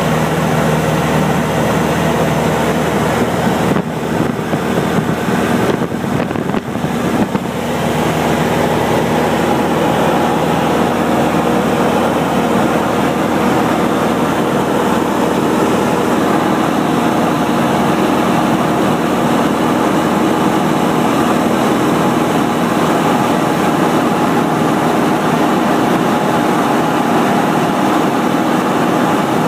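Cabin noise of a light airplane in cruise: the engine and propeller running steadily and loudly.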